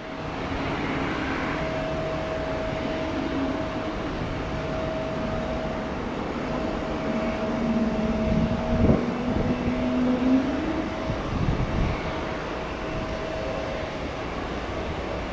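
Airbus A220-300's Pratt & Whitney geared turbofan engines running, a steady whine over an even rumble. A lower tone joins in the middle, rising slightly just before it fades.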